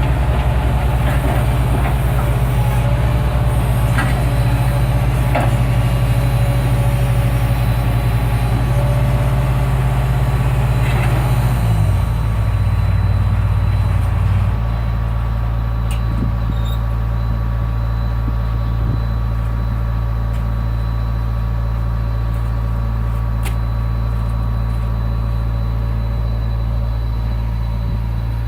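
Engine of a piece of demolition machinery running steadily at a low drone; about twelve seconds in its pitch drops, and a couple of seconds later it settles quieter at a lower speed. Scattered light knocks sound over it in the first half.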